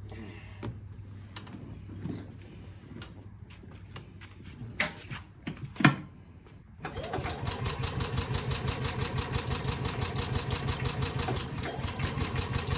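1990 Club Car gas golf cart engine starting about seven seconds in and then running steadily with a rapid putter and a steady high whine over it. A couple of sharp clicks come shortly before it starts.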